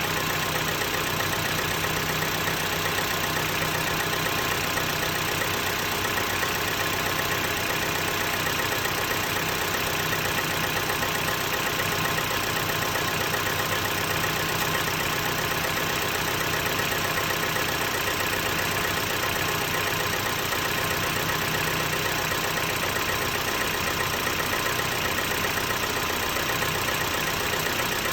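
Mitsubishi 4B11 2.0-litre inline-four engine idling steadily with a persistent knock.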